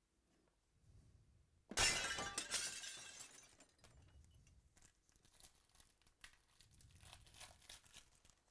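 Foil trading-card pack wrappers crinkling: a sudden loud crinkle about two seconds in that fades over a second or so, then quieter crinkling and tearing near the end as a new pack is ripped open.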